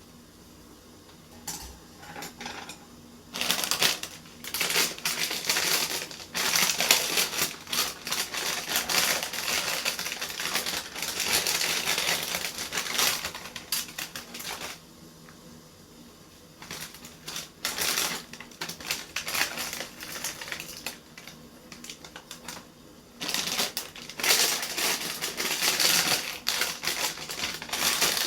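Dense, rapid crackling and crunching clicks close to the microphone, in two long stretches separated by a short lull.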